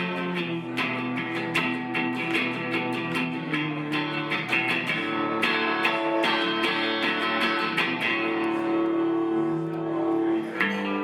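Electric guitar strummed in a steady rhythm in a live performance of a song.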